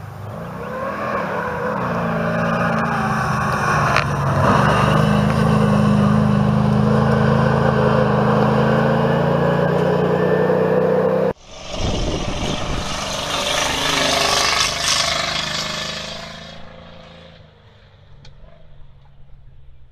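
Rally cars at speed on a gravel stage. An engine grows louder and revs hard as a car approaches, its pitch dropping as it goes by. After a sudden cut, another car passes close with a loud rush of tyres and flung gravel that fades away over a few seconds.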